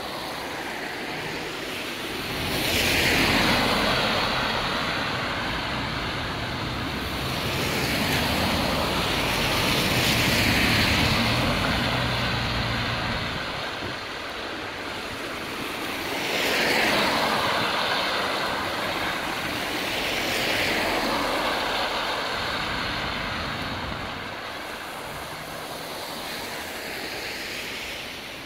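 Several vehicles passing one after another on a rain-wet street, each a slow swell of tyre swish on wet asphalt, over a steady hiss of rain.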